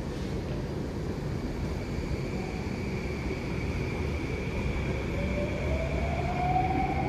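Singapore MRT Downtown Line train running, heard from inside the carriage: a steady rumble with a steady high tone over it. About five seconds in, the traction motor whine starts to rise in pitch as the train picks up speed.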